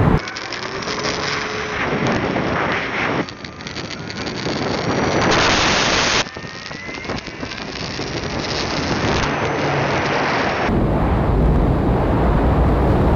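Loud rushing wind noise on the microphone of a camera riding on an electric E-flite Air Tractor RC plane in flight. The motor and propeller whine glides faintly up and down beneath it. The sound changes abruptly a few times.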